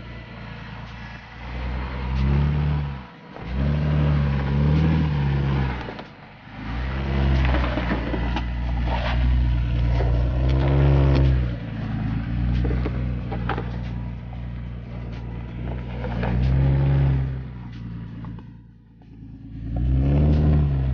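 An off-road 4x4's engine revving up and easing off again and again as it crawls over rough trail, with scattered short clicks and knocks over it.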